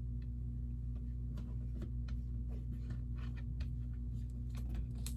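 Steady low hum, with faint small ticks and rustles starting about a second and a half in as a sticker and its backing are handled and pressed onto a Lego plaque piece.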